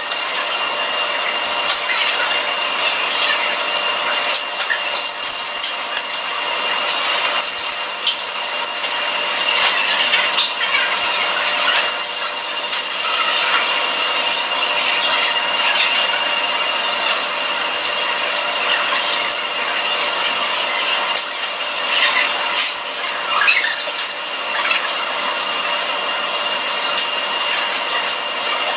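Steady rushing noise aboard a ferry under way, with a high steady whine running through it and scattered crackles and rubbing sounds.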